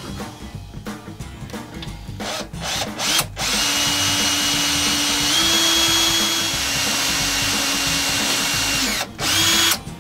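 Handheld power drill boring into plywood: the motor whines steadily for about five seconds, stepping up in pitch partway, then runs again in a short burst near the end. Before it, a few seconds of light irregular scraping and clicking.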